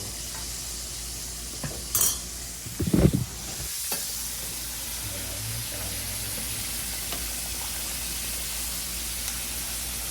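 Chicken pieces deep-frying in hot grease, a steady sizzle. A sharp click about two seconds in, then a brief, louder thump about a second later.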